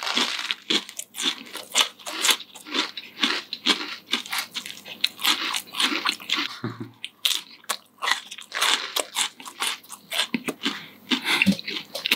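People chewing a crunchy chocolate-hazelnut cereal snack close to the microphone: a dense, irregular run of crisp crunches.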